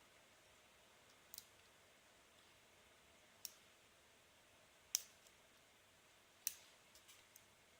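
Sharp metallic clicks of a hook pick working the spool pins inside an Abus Titalium padlock under light tension: four louder clicks about a second and a half apart, then a few softer ones near the end.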